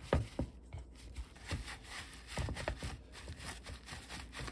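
Kitchen paper towel pressed and dabbed onto ground pork in a stainless steel bowl, making an irregular run of soft dabs and paper rustles as it blots the blood out of the meat.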